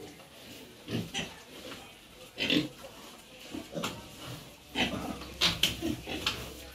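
Pigs grunting in short, scattered bursts, about eight over several seconds.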